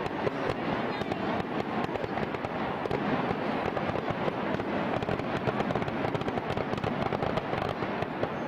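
Aerial fireworks bursting, a dense, unbroken run of rapid pops and crackles with no single big boom standing out.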